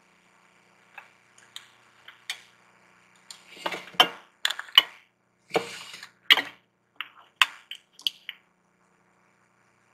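Makeup compacts and a brush being handled on a tabletop: a series of sharp clicks and clinks, with short spells of rummaging about four and six seconds in.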